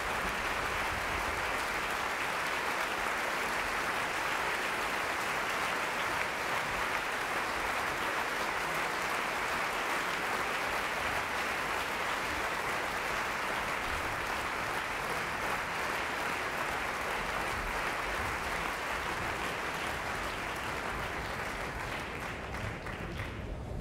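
Large audience applauding steadily, a dense, even clapping that eases slightly near the end.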